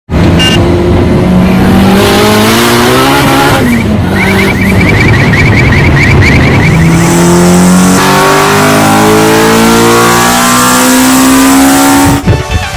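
High-revving vehicle engine accelerating hard through the gears, the pitch climbing in three long pulls with a drop at each shift, and cutting off suddenly near the end.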